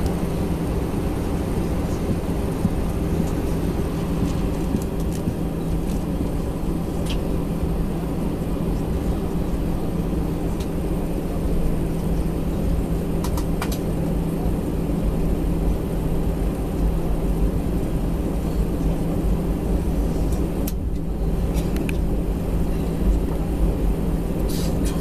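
Airbus A320 cabin noise while taxiing: the engines and cabin ventilation make a steady low hum with a held drone. There are a few faint clicks.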